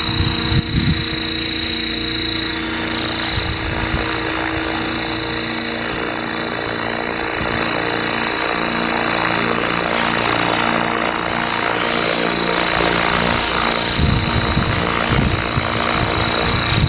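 500-size electric RC scale UH-1H Huey helicopter hovering low, running on a freshly replaced main shaft bearing: its rotor blade noise comes with a steady high-pitched motor whine and a lower steady hum. Wind buffets the microphone a few times, most near the end.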